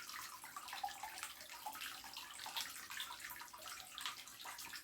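Faint water trickling and splashing in a blue bowl gold concentrator as it runs, with many small irregular splashes.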